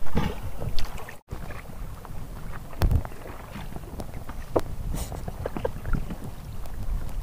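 Wind rushing on the microphone at sea, with scattered knocks and splashes around a small wooden outrigger canoe. The sound cuts out for a moment about a second in.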